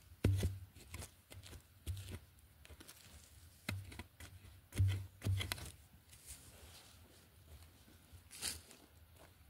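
Metal digging spade chopping and scraping into crumbly soil while loosening earth around a wild yam tuber, with soil crunching and falling. The strikes come irregularly, several in the first six seconds and one more near the end.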